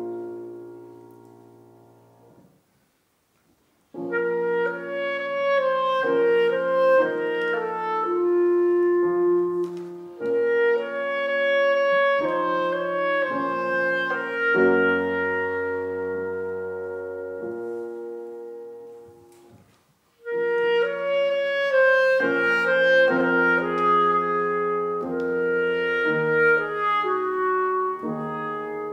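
Clarinet and grand piano playing classical chamber music. A held chord dies away into a short silence, then the duo plays on from about four seconds in, with a brief break just after twenty seconds before the music resumes.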